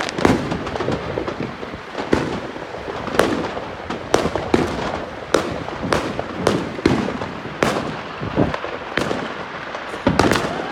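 Many fireworks going off at once across the neighbourhood: more than a dozen sharp bangs at irregular intervals, over a constant crackle of smaller reports.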